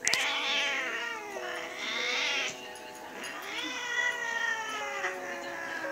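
Domestic cat yowling in three long, drawn-out meows whose pitch bends up and down, the last one sliding slowly downward. A sharp click comes at the very start.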